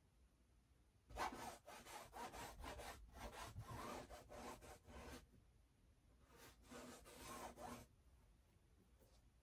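Faint paintbrush strokes scrubbing paint across a stretched canvas: a quick run of rubbing back-and-forth strokes starting about a second in and lasting about four seconds, then a shorter run after a brief pause.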